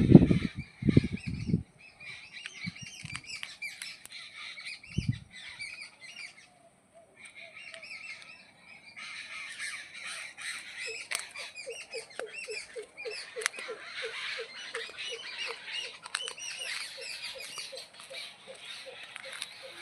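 Many birds calling at once, a dense chatter of overlapping chirps and squawks with a short lull a few seconds in. From about halfway a low note repeats quickly, roughly three times a second. A few loud low thumps come in the first two seconds.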